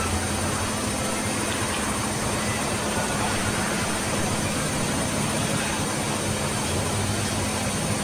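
Electrolux EWF85761 front-loading washing machine spinning its drum in the spin cycle: a steady rushing whir with a constant low hum underneath.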